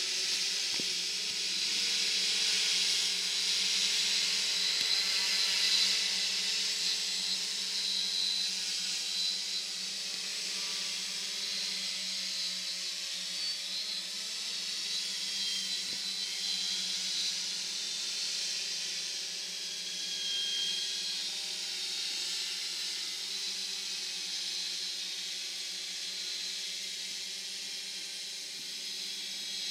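Electric quadcopter hovering overhead: its motors and propellers make a steady whirring buzz with a faint high whine.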